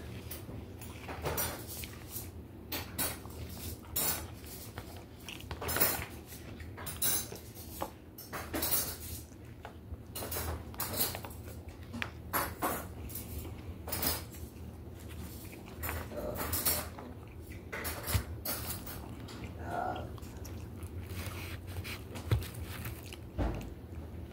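Eating at close range: irregular short clicks and taps of food being picked off a paper plate with the fingers and chewed.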